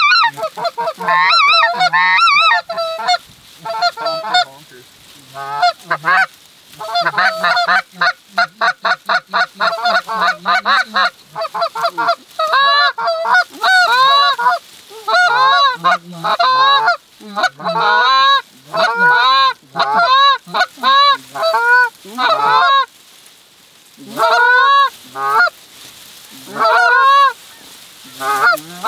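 Loud Canada goose calling blown on hand-held goose calls: a string of honks and clucks, with a fast rattle of short clucks about a third of the way in, then longer rising-and-falling honks.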